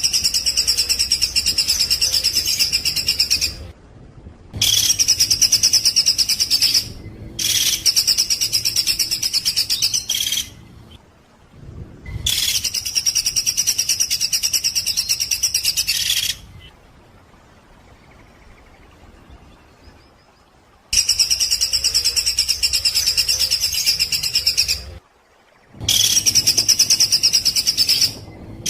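Songbird song in loud bursts of fast, evenly repeated harsh notes: the rapid-fire 'tembakan' phrases used in masteran song tracks. Six bursts of two to four seconds each are separated by short pauses.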